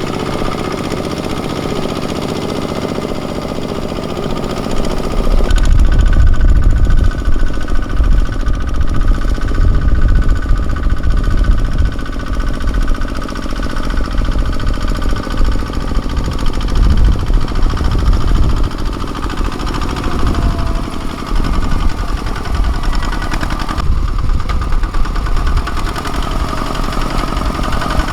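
Kubota ZT155 single-cylinder diesel engine of a mini tractor chugging while ploughing. About five seconds in it gets louder, with heavier low pulsing.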